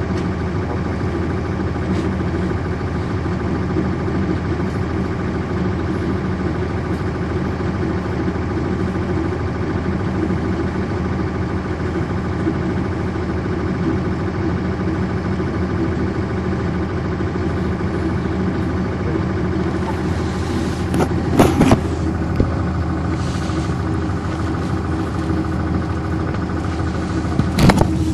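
1999 NovaBus RTS transit bus's Cummins ISC diesel engine running steadily, heard from inside the bus. A few short, loud knocks or rattles come about three quarters of the way through and again near the end.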